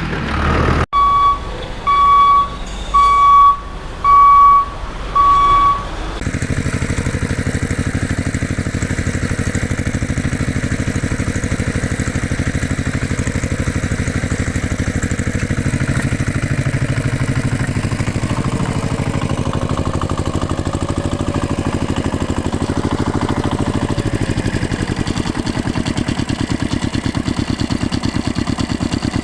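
Five evenly spaced reversing-alarm beeps, about one a second, followed by a steady engine drone that runs on.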